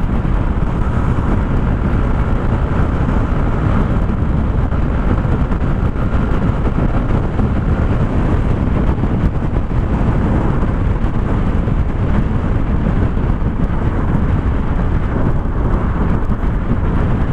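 Heavy wind noise on the microphone as a Yamaha NMAX V2 scooter is ridden at speed, with the scooter's engine running underneath.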